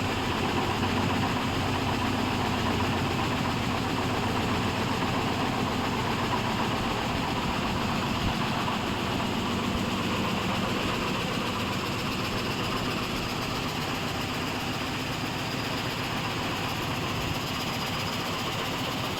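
SanHe 3030 frame saw machine running steadily, a continuous mechanical din with a fine rapid pulse underneath.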